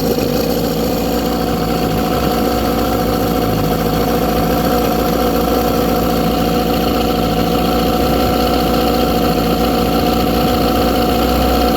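1997 Tracker 40 hp outboard motor built by Mercury, idling steadily without faltering.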